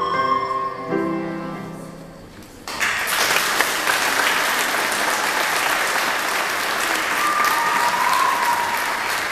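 A children's recorder ensemble's last held chord fades away, then about two and a half seconds in an audience suddenly breaks into steady applause.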